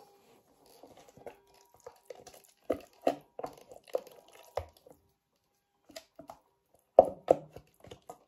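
Spatula scraping thick broccoli purée out of a plastic food-processor bowl: a run of knocks and scrapes against the plastic with soft wet plops, the loudest knocks about seven seconds in.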